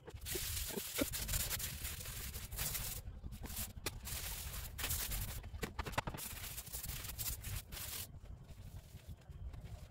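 A scrubbing pad rubbing over a stone countertop: a hissing scrub in long strokes with short breaks, easing off about eight seconds in.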